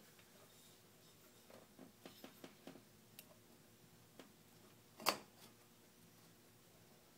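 Faint clicks and light metal taps as the finned cylinder of a Honda 300 ATV engine is worked down over the cylinder studs onto the base gasket: a quick run of them about two seconds in and one sharper click about five seconds in.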